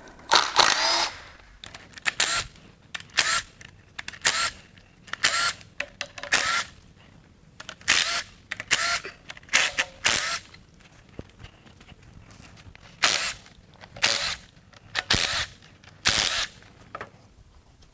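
Cordless drill-driver spinning out 10 mm bolts from an engine's timing cover, in about fifteen short whirring runs of under a second each with pauses between.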